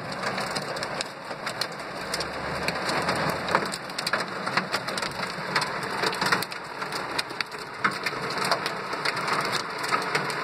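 Hail and heavy rain pelting a car's roof and windshield, heard from inside the car: a dense, steady hiss of rain, pierced by many sharp ticks of hailstones striking.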